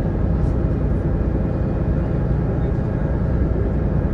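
Engine of a sightseeing boat running steadily under way: a loud, even, low rumble.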